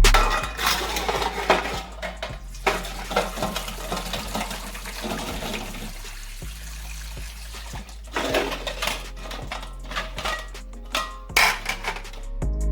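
Garlic being washed by hand: water sloshing in a bowl with light clinks and clatter of dishware, coming and going irregularly.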